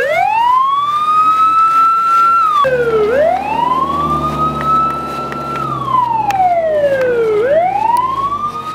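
Fire engine's electronic siren wailing, its pitch sweeping slowly up, holding high, then gliding back down in repeated cycles. A low engine hum runs underneath from about three seconds in.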